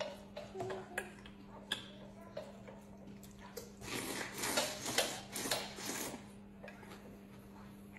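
A man slurping noodles from a plate in a noisy burst of about two seconds, starting about four seconds in. Before it come a few light clicks of chopsticks against the dishes, all over a steady low hum.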